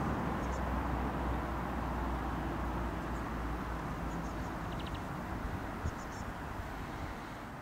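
Steady outdoor background noise, a low rumble under a soft hiss, with a few faint short high chirps now and then. It fades a little near the end.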